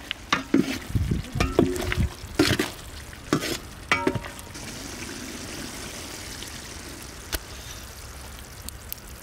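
A spatula scraping and knocking through a thick, sizzling lobster masala in a large metal pot, giving a string of short scrapes. After about four seconds the stirring stops and a steady sizzling hiss of the simmering curry is left.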